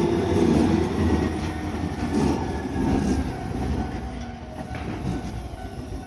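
Tobu Tojo Line electric train passing over a level crossing, its wheels running on the rails. The sound fades as the last cars pass.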